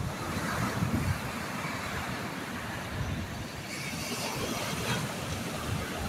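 Ocean surf breaking and washing up a sandy beach at high tide, a steady rush of water, with wind buffeting the microphone in uneven low gusts.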